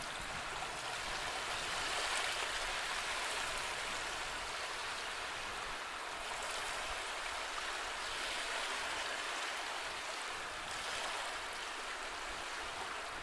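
Steady rushing of running water, a continuous even wash with no separate drops or splashes.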